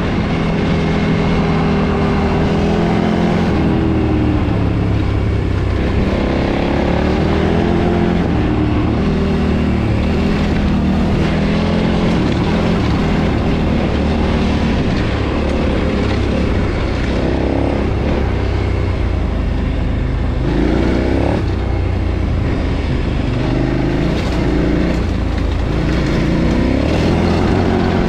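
2013 KTM 990's V-twin engine heard through its stock exhaust while being ridden, the revs repeatedly rising and falling as the throttle is opened and closed.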